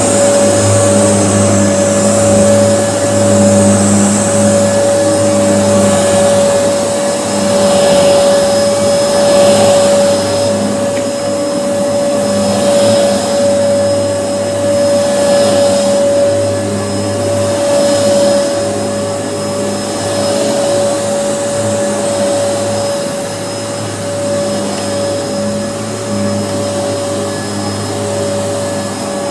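Kenmore upright vacuum cleaner running steadily, a constant motor whine with a hiss that swells and fades about every two seconds.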